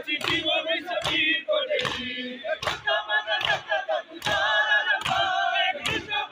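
A crowd of men chanting a mourning lament together while beating their chests in time (matam). A sharp slap falls about every 0.8 seconds under the chant.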